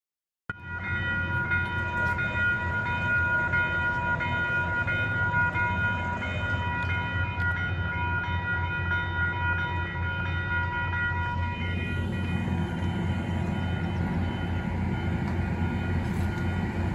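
Metro-North commuter train approaching, its horn sounding one long held chord of several notes that stops about twelve seconds in, over the train's steady low rumble.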